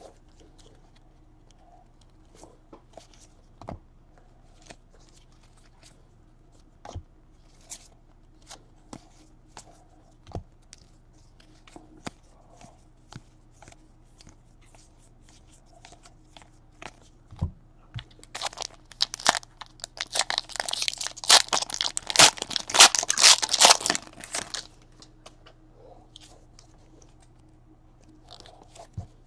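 Trading cards handled and flicked through, giving scattered light taps and clicks. About eighteen seconds in, a trading-card pack wrapper is torn open and crinkled for several seconds. This tearing is the loudest part.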